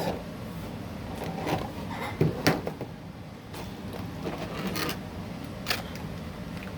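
Action-figure packaging being handled and opened: scattered rustles and short clicks of cardboard and plastic, with a couple of sharper clicks about two and a half seconds in and again near six seconds.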